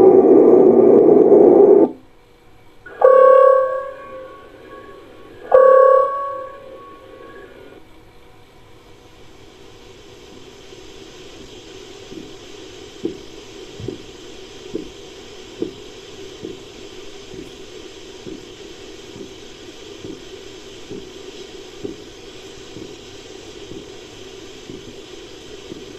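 Dubbed giant-bird calls made from cassowary and dinosaur-bird sound effects: a loud, deep call, then two shorter pitched calls about three seconds apart. After that comes a steady low hiss with soft thumps about once a second.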